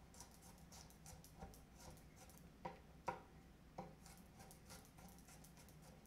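Chef's knife chopping garlic cloves on a small cutting board: faint, irregular taps and clicks of the blade on the board, with a few louder knocks between about two and a half and four seconds in.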